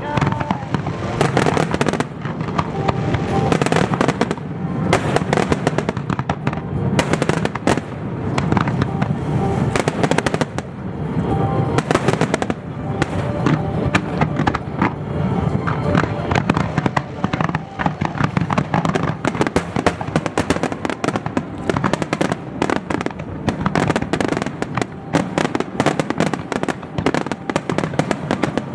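Fireworks display: a dense, continuous barrage of bangs and crackling bursts.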